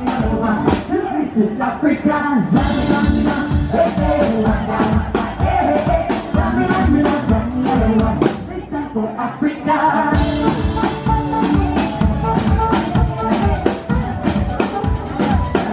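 Upbeat music with singing over a steady drum beat.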